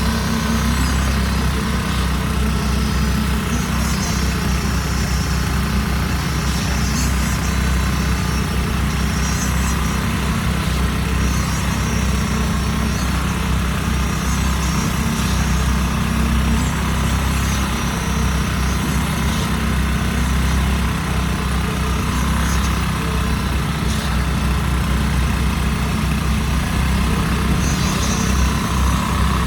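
An engine running steadily at a constant speed, with a deep hum, from the machinery at a concrete slab pour.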